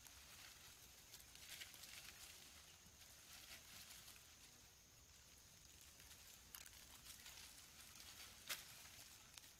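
Faint rustling and crackling of dry leaf litter and twigs as small monkeys scramble through the undergrowth, with a few short snaps, the sharpest about eight and a half seconds in, over a steady faint hiss.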